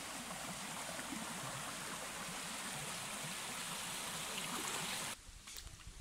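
Shallow stream rushing over rocks and stones, a steady wash of running water. It cuts off sharply about five seconds in, leaving a much quieter background.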